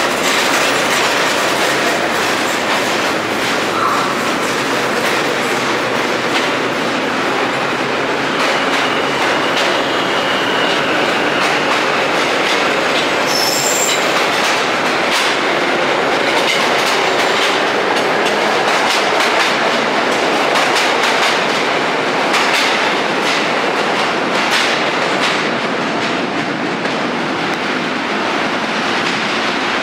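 A train of vintage R1/9 New York subway cars pulling out of an underground station, its wheels clattering over the rail joints with a steady rush of running noise and a faint high wheel squeal about a third of the way in.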